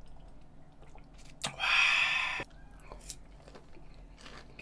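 Close-miked eating sounds of a man chewing boneless fried chicken: soft wet chewing and small mouth clicks. One loud burst of mouth noise comes about a second and a half in and lasts about a second.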